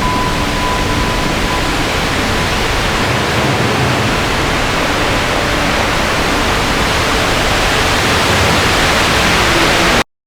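Loud, steady rushing noise with no distinct events, and a faint thin tone for the first second and a half; it cuts off suddenly near the end.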